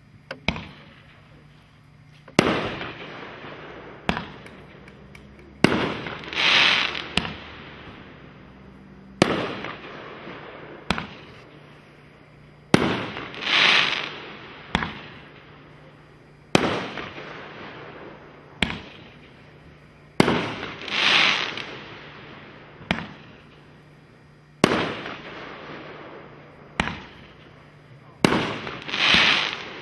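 Red Rhino Big Gun 500-gram firework cake firing: sharp bangs about every one and a half to two seconds, each trailing off. Between every third and fourth bang a rushing hiss swells and fades.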